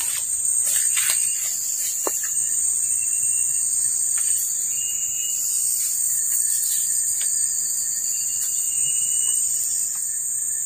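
Steady high-pitched drone of tropical forest insects, with a few short thin whistling notes and a few sharp clicks in the first two seconds.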